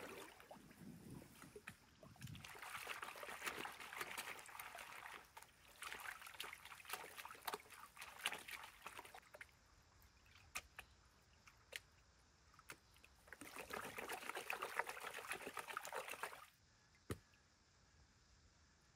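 Water sloshing and trickling in a plastic gold pan as it is dipped and swirled in a creek to wash off the lighter material, in three bouts of swishing with small ticks in them and a sharp click near the end.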